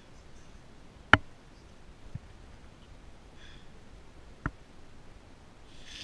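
Quiet small-room tone broken by sharp clicks: a loud one about a second in, a fainter low knock at two seconds and another click past four seconds, with a soft sniff between them.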